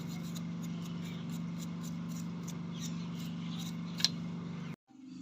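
Light scraping and ticking of hand work on metal parts over a steady low hum, with one sharp click about four seconds in. The sound then cuts out abruptly and returns as a quieter hum.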